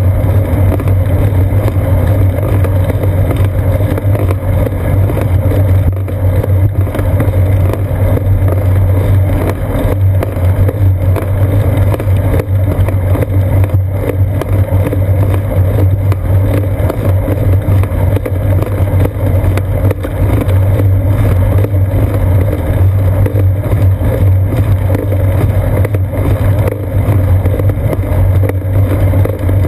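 Steady wind rush and road rumble picked up by a seat-post-mounted GoPro Hero 2 as the bicycle rolls along the road: a loud, unbroken drone with a strong low hum.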